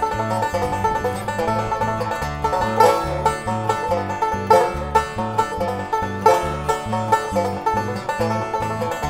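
Bluegrass banjo tune: quick picked banjo notes over a low bass line in a steady rhythm.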